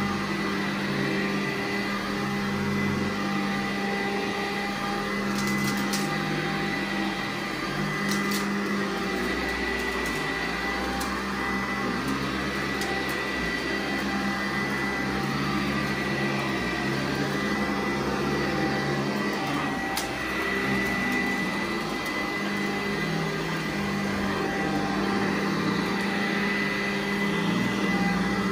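Vacuum cleaner running steadily while pre-vacuuming carpet ahead of a carpet cleaning, with a few sharp clicks now and then.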